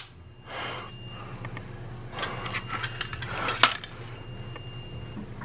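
Handling noise: rubbing and scraping with several light clicks, the sharpest about three and a half seconds in.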